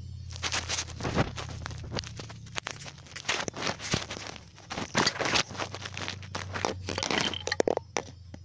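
Irregular rustling and crunching of wood-shaving bedding as a guinea pig moves about in its cage, over a steady low hum.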